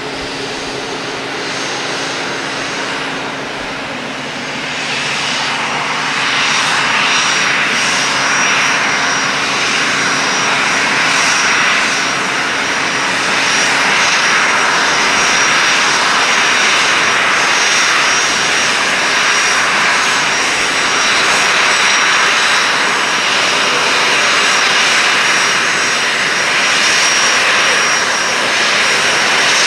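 Boeing 737-500's CFM56 jet engines running at taxi power as the airliner taxis in toward the gate: a steady jet rush with a thin high whine, growing louder about five seconds in as it nears.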